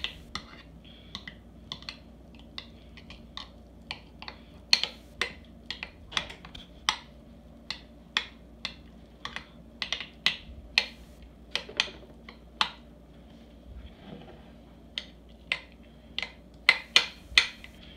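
Metal spoon clicking and scraping against a white CorningWare baking dish as meatloaf mixture is smoothed level: irregular sharp clicks, one to three a second, with a quick run of louder ones near the end.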